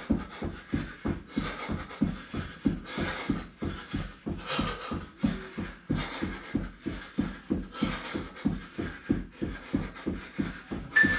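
Rapid, even thuds of feet landing on the floor while running on the spot doing high knees, about four a second, with hard breathing over them.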